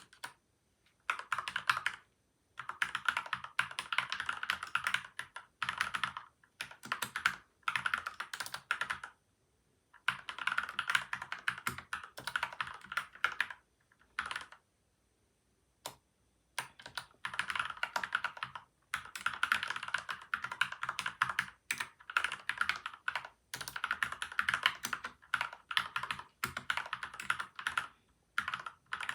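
Typing on a PCL87 mechanical keyboard with lubed switches and stabilisers and tape and foam mods: quick runs of keystrokes broken by short pauses, the longest a little under halfway through.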